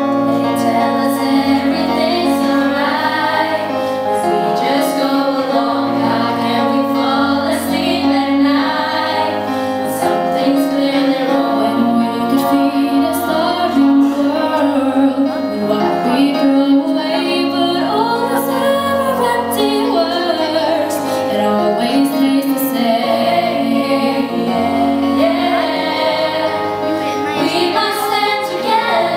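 Teenage girls' choir singing a pop-soul song live with band accompaniment, the full group and band coming in loud right at the start after a quieter guitar and piano passage.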